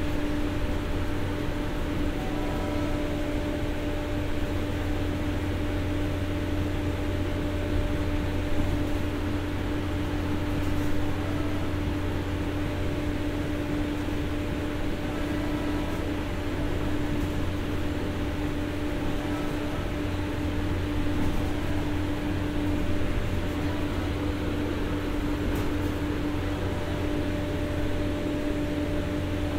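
Diesel generator set on a standing ex-JR 203-series commuter car, running steadily: a constant drone with a strong low hum tone.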